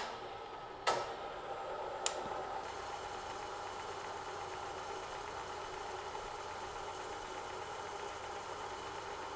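Bridgeport milling machine spindle running with a boring head taking a 100-thousandths pass in a metal throttle body spacer: a steady mechanical whine, with three sharp clicks in the first two seconds.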